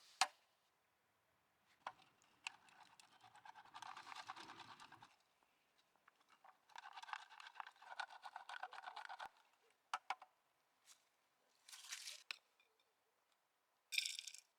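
Bar of soap being grated: two runs of quick scraping strokes, each a few seconds long, with scattered clicks and knocks of handling between them.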